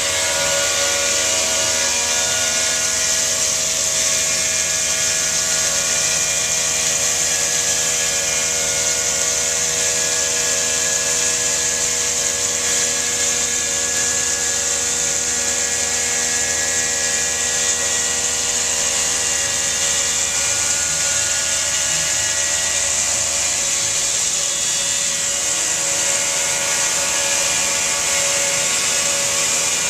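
CNC stone router spindle running a diamond profiling wheel at 5,000 RPM along a countertop edge under water coolant. It makes a steady whine of several held tones over a loud hiss of grinding and spray. The spindle is barely loaded, as on a light-cutting profiling pass. A low hum underneath drops out about two-thirds of the way through.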